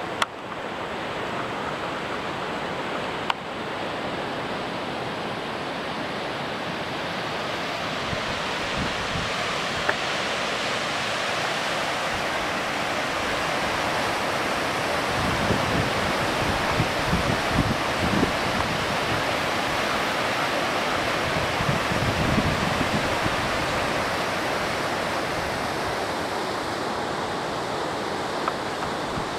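Steady rushing of wind and distant ocean surf, with gusts buffeting the microphone in the middle stretch. A few sharp clicks come through near the start and about ten seconds in.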